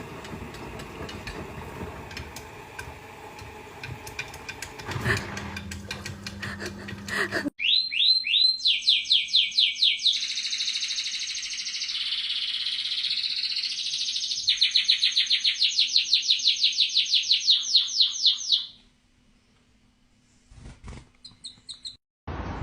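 A bird's high chirping: rapid, evenly repeated trills lasting about ten seconds, after a first stretch of mixed noise and clicks, with a few fainter chirps near the end.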